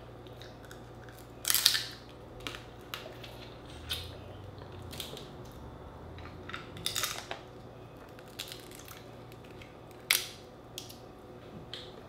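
Dungeness crab shell and legs being cracked and picked apart by hand: irregular sharp cracks and crunches, the loudest about a second and a half in and again near ten seconds in.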